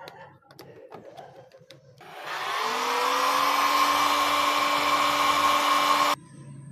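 Hand-held hot-air blower switched on about two seconds in, its motor whining up to speed and then running steadily with a loud rush of air while it heats the tint film. It is switched off abruptly near the end. Faint handling clicks come before it.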